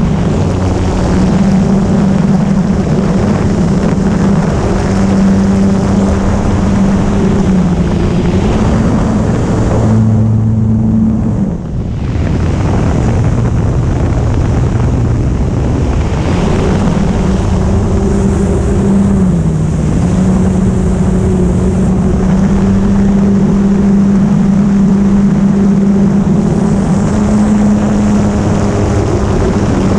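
Sebart 2.2 model airplane's motor and propeller running as a steady hum under a loud rush of wind on the microphone. The pitch dips briefly twice. About ten seconds in the rushing drops out for a second or two while the hum holds, then it returns.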